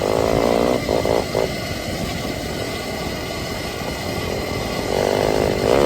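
Surron Ultra Bee electric dirt bike being ridden off road: a steady rumble of wind and ground noise, with a pitched motor hum in the first second and again near the end.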